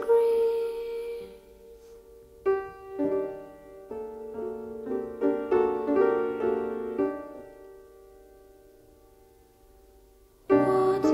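Background music: a soft piano passage of separate ringing notes that dies away almost to nothing, before fuller music comes back in near the end.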